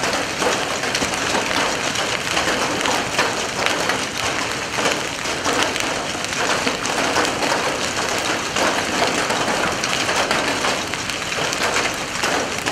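Heavy rain mixed with hail pelting down on pavement and nearby surfaces: a dense, steady downpour thick with sharp ticks and clatters of hailstone impacts.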